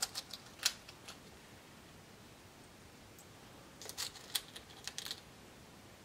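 Small sharp clicks and taps of tiny lock pins being picked out of a plastic pinning-kit tray and set into a lock cylinder's barrel while rekeying it. They come in two brief clusters, at the start and again about four seconds in.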